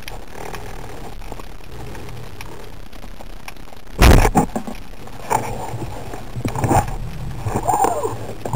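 A Comanche 90 speargun fired underwater: a sudden loud crack about four seconds in, after steady underwater hiss. Several knocks and clatters follow as the shaft and line are handled.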